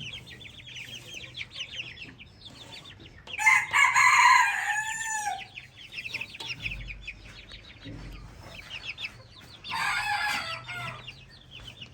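Shamo chicks peeping steadily in rapid high chirps, with two louder bouts of lower chicken calls about three and a half seconds and ten seconds in.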